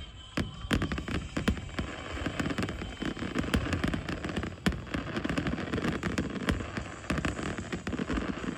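Aerial fireworks going off: a dense run of sharp pops and crackles, with a louder bang a little under five seconds in.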